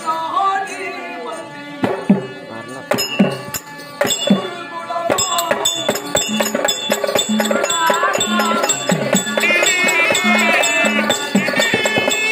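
Therukoothu folk-theatre ensemble playing: barrel drums and small hand cymbals. At first there are only sparse drum strokes. From about five seconds in the drums settle into a fast, steady rhythm, and a high melody line joins them later.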